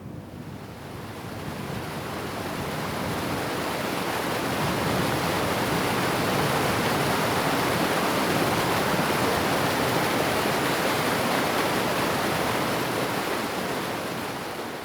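Steady rushing of running water, fading in over the first few seconds and fading out near the end.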